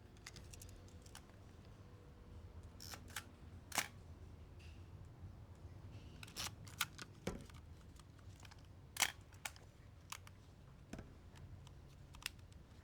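Minolta XG-7 film SLR body being handled: scattered, irregular sharp clicks of its dials and controls, with a few louder clicks about 4 and 9 seconds in.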